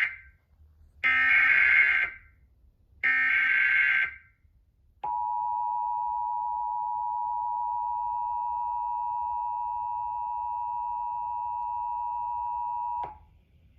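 Emergency Alert System signal: two one-second bursts of SAME digital header data, then the two-tone EAS attention signal held steady for about eight seconds before it cuts off. The header codes a Nuclear Power Plant Warning that was sent by mistake in place of a practice/demo message.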